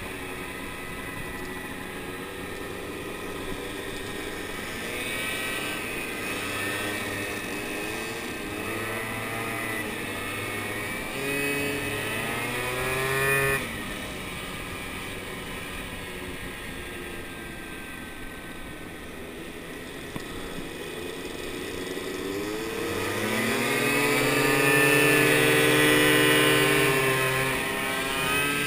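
Moped scooter engine running under way, its pitch climbing and dropping as the throttle is opened and closed, over a steady wind rush. About halfway through a climb is cut off sharply, and near the end it swells louder and higher before easing.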